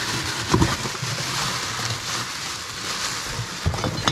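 Steady rustling and scraping as things are rummaged around in a cardboard box, with a few light knocks.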